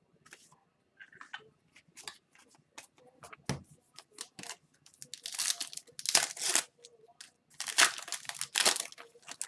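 Foil wrapper of a retail hockey card pack torn open and crinkled, with light clicks and rustles of card handling first and loud crackling bursts in the second half.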